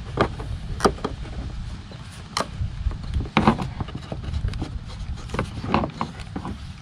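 A handful of small, irregular clicks and taps from a screwdriver working a tiny screw out of a plastic license-plate light lens, over a steady low background rumble.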